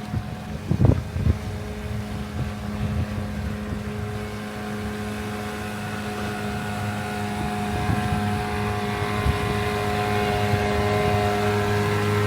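Dinghy outboard motor, strapped alongside a yacht to push it, running steadily at a constant speed, with a few low thuds about a second in.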